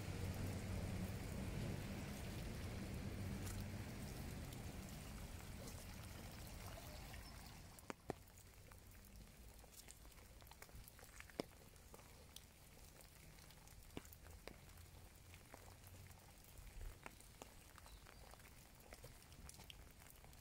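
Rain falling, with a steady hiss and a low hum that fade out over the first eight seconds or so; after that it is quieter, with scattered sharp drips and taps of raindrops.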